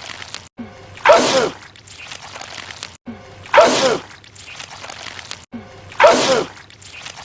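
A man's loud sneeze, the same sneeze repeated three times about two and a half seconds apart. Each starts suddenly, and the voice in it falls in pitch.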